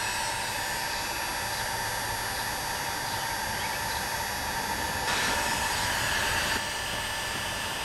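Electric heat gun running steadily, a hiss of blown air with a faint steady whine, heating the kayak's polyethylene hull soft enough to press the crack back together. It gets louder for about a second and a half, about five seconds in.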